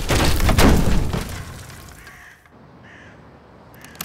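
Loud dramatic music with heavy impacts dies away over the first second and a half. It leaves a quiet stretch with a few short, faint crow-like caws and one sharp click just before the end.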